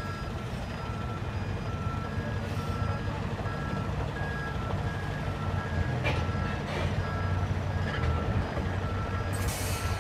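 Truck reversing alarm beeping steadily in a repeating pattern, over the low, steady running of the heavy-haul tractor unit's diesel engine as it manoeuvres a low-bed trailer. A short hiss of air comes near the end.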